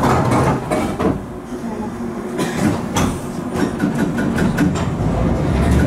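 London Underground Bakerloo line 1972 Stock train heard from inside the carriage: the doors close with a thud at the start, then the train runs on with a low rumble and a quick run of sharp clicks in the second half as it pulls away.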